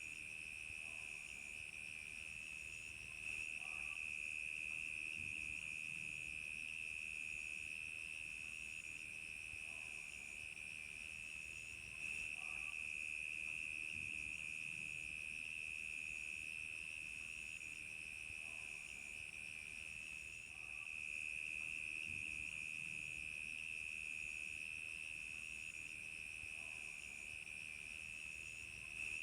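Crickets chirping in a continuous high trill, with a second, higher chirp repeating about once every second and a half.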